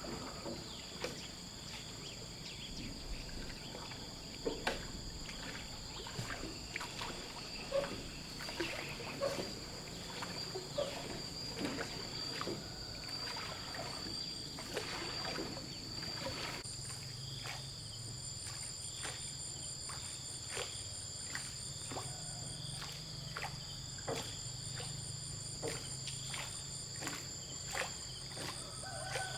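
Insects droning in steady high tones, joined about halfway by a fast pulsing chirp, over scattered short knocks and splashy clicks.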